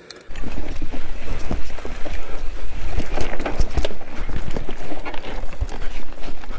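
Mountain bike riding down a dirt trail. Tyres rumble over the ground, with irregular clicks and rattles from the chain and frame over bumps, and wind rushing on the microphone. The noise starts suddenly a moment in.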